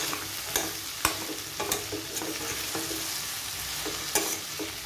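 Metal ladle stirring chopped vegetables frying in oil and ghee in an aluminium pressure cooker: a steady sizzle with irregular scrapes and clicks as the ladle knocks against the pot.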